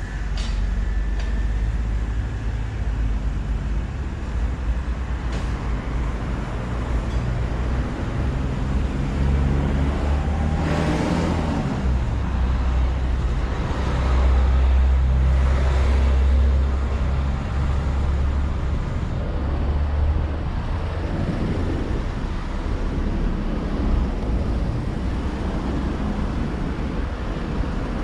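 Road traffic: a steady low rumble of vehicles driving by, with a louder pass about ten seconds in and another a few seconds later.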